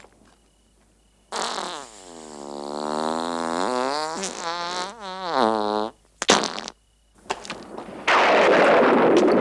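A long comic fart, the film's sound effect, with a clear pitch that slides down and then wavers for about four and a half seconds. A few sharp cracks follow. About eight seconds in, a loud rushing noise starts and goes on: the effect for lightning streaking across the sky.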